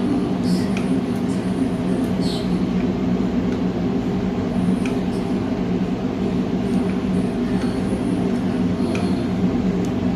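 TIG welding arc running: a steady buzz with a hiss over it and a few faint crackles.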